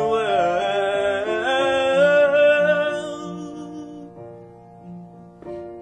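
Solo voice holding a long sung note over acoustic guitar, the voice bending in pitch and then fading away over the second half; a new guitar note sounds just before the end.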